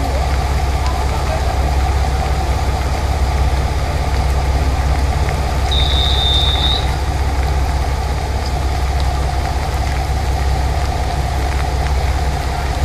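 Diesel railcar engine idling at the platform, a steady low hum under the hiss of heavy rain. About six seconds in, a short high beep sounds for about a second.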